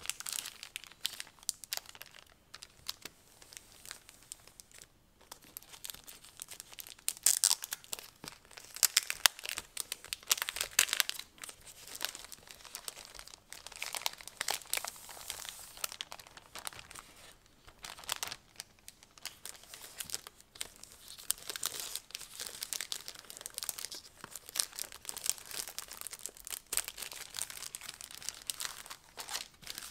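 Clear plastic wrapping crinkling and crackling in quick, irregular bursts as hands handle it and peel it off a new notebook. It is loudest about a quarter to a third of the way in.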